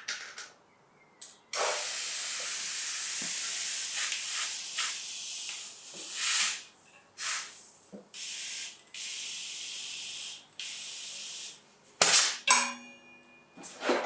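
Air hissing in long bursts as a bicycle tyre is inflated, with a few sharp clicks near the end.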